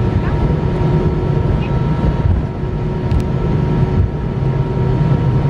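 Steady engine and airflow noise inside the cabin of an Airbus A320, a deep rumble with a few faint constant whining tones above it.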